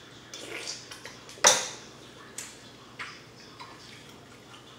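Close-miked eating of buttery seafood: wet chewing and lip-smacking, with one sharp, loud smack about a second and a half in and a few smaller ones after it.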